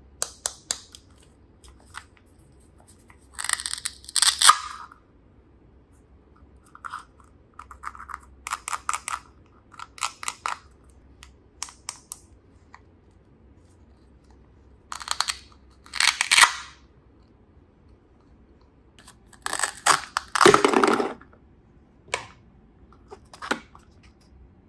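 Packaging being handled and opened by hand: irregular crinkling and tearing bursts with sharp clicks, the loudest bursts about 4, 16 and 21 seconds in.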